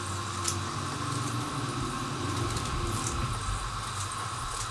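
A steady low hum with a hiss, and a few faint pops from whole spices frying in hot oil in the pan.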